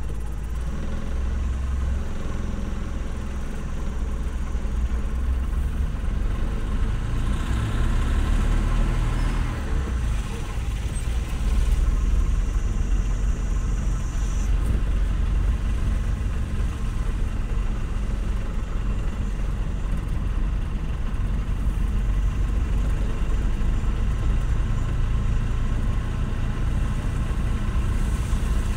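Vehicle engine and road noise while driving, a steady low rumble that swells briefly about a quarter of the way in.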